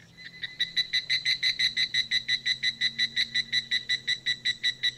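A small animal calling near the water: a steady, rapid train of high pulses, about seven a second.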